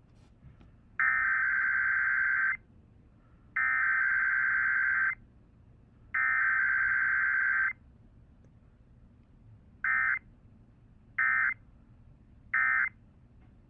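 Emergency Alert System SAME digital data bursts: three long buzzy bursts of about a second and a half each, the coded alert header, then three short bursts, the end-of-message code.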